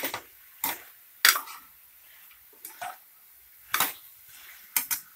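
Steel ladle knocking and scraping against a pressure cooker while stirring spiced chicken. About six sharp knocks come roughly a second apart, two in quick succession near the end.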